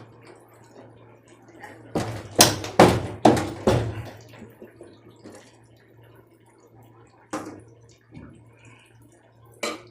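A quick run of sharp knocks and clanks about two seconds in, then one more a few seconds later, as hand tools work on the drum pulley of a front-load washing machine; a faint low hum runs underneath.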